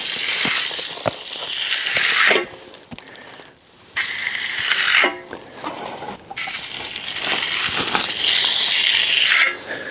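A float or trowel scraping and swishing across the surface of freshly poured wet concrete in long strokes, with short pauses between passes as the slab is smoothed.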